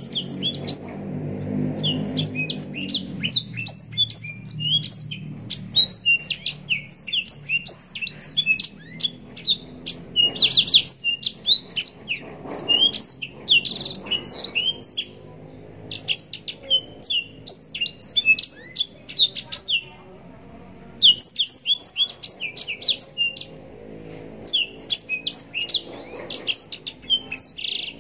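Blackthroat (black-throated canary) singing a long, fast song of rapid high chirps and trills, broken by short pauses about 15, 20 and 24 seconds in. A low hum sits under the first few seconds.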